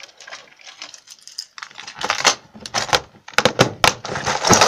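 Fairly quiet for about two seconds, then a run of sharp clicks and rattles of hard-plastic fishing lures being handled.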